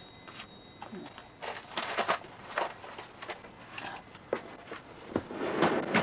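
Shuffling footsteps on pavement with rustling, in irregular scuffs that grow loudest shortly before the end.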